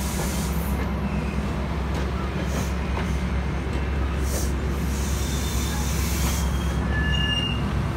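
Bilevel commuter train coaches rolling past on steel rails: a steady low rumble, with a few short high wheel squeals in the second half.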